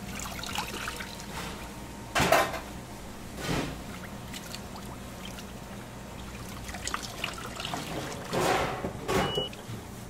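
Liquid pouring and splashing in four short bursts, the loudest about two seconds in, over a steady low hum.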